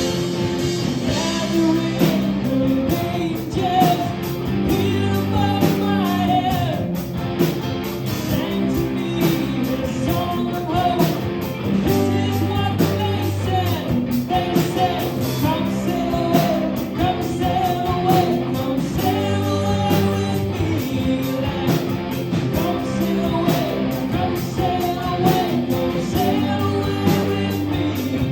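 Rock band playing a song on electric guitar, bass and drums, with a steady beat and sustained bass notes.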